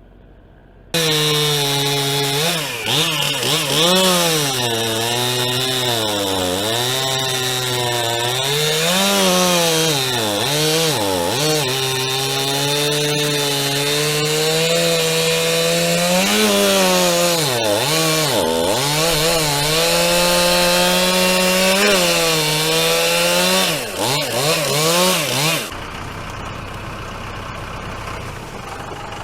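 Chainsaw cutting into white oak. It starts about a second in, and its engine pitch dips again and again as the chain loads up in the wood, then climbs back between cuts. Near the end it falls to a lower, quieter running.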